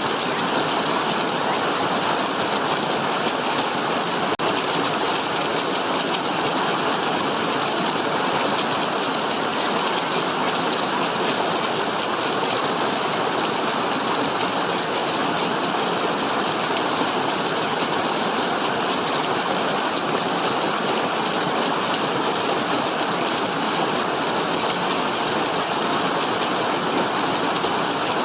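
Steady rushing of falling water, an even unbroken hiss, with a split-second dropout about four seconds in.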